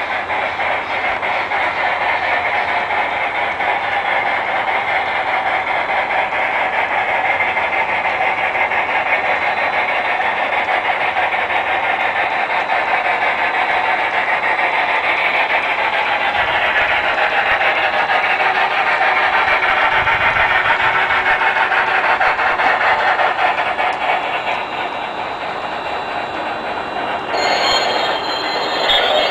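Large-scale model train running on its track: the locomotive's drive and the freight cars' wheels rolling over the rails and through a hand-spiked turnout with a steady clatter. The sound turns brighter and sharper near the end as the cars pass close by.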